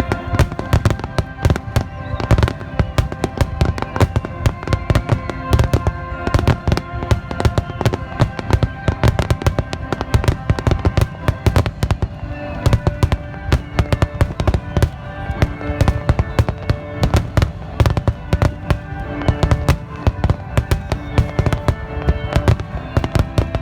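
Fireworks finale barrage: shells bursting in rapid, overlapping bangs, several a second without a break, over music playing.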